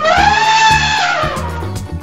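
Elephant trumpeting: one long call that rises, then slides down and fades after about a second and a half, over backing music with a steady beat.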